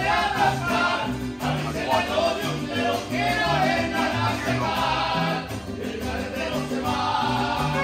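Live mariachi band playing, with a singing voice over a bass line that steps from note to note.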